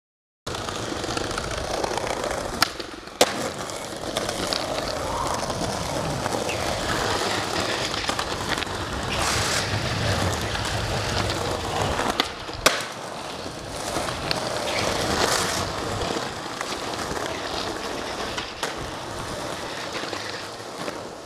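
Skateboard wheels rolling over rough street pavement, a steady gritty noise. Sharp clacks of the board stand out about three seconds in, twice, and again about thirteen seconds in.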